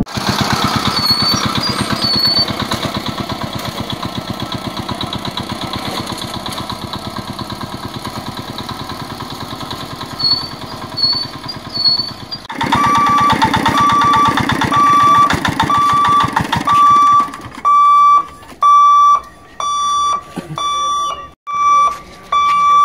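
A small motor van's engine runs with an even chugging pulse, fading slowly as it moves off. About halfway through, a level-crossing warning alarm starts, a steady single-pitch beep repeating about one and a half times a second that warns the gate is closing, with an engine chugging under it for the first few seconds.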